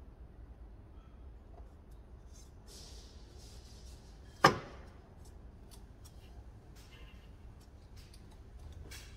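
Handling noises of intake piping being test-fitted in an engine bay: faint clicks and rubbing, and one sharp, loud knock about halfway through.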